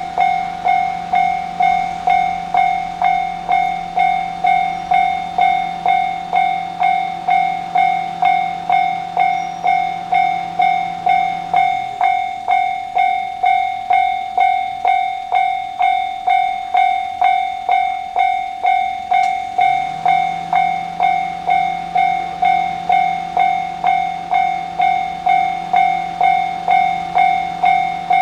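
Japanese level-crossing electronic warning bell ringing its repeated 'kan-kan' ding, about two strikes a second. Under it a fainter low hum rises in pitch at the start, stops about twelve seconds in, and rises again near twenty seconds.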